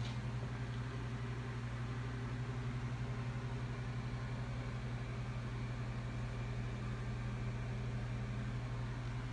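Steady low machine hum of a motor or fan running, with a faint click near the start.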